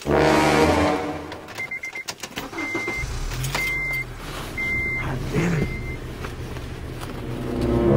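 A deep, loud horn-like tone at the start, then a car's dashboard warning chime beeping about once a second. About three seconds in the car's engine starts and runs with a steady low hum. The deep horn-like tone swells again near the end.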